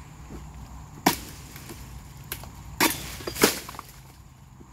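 Steel harvesting chisel (dodos) on a long pole chopping into the base of an oil palm: sharp strikes about a second in, just before three seconds and again half a second later, with a lighter hit in between.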